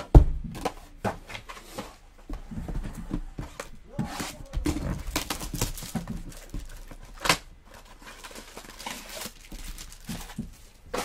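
Shrink-wrapped trading card box and its foil packs being unwrapped and handled on a tabletop: crinkling plastic and rustling, with knocks against the table, a loud thump just after the start and a sharp tap about seven seconds in.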